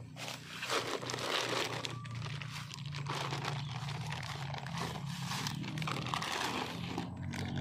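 Dry leaves and litter crunching and crackling underfoot in dense irregular rustles, over a low steady hum.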